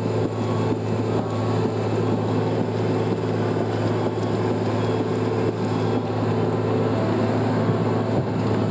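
Diesel engine of a Komatsu PC1250 hydraulic excavator running steadily, a constant low drone heard from the operator's cab.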